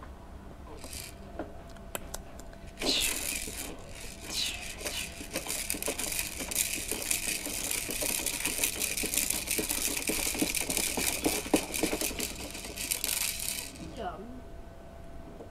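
Busy rattling and clinking of small hard objects, with many quick clicks, starting about three seconds in and stopping sharply about two seconds before the end.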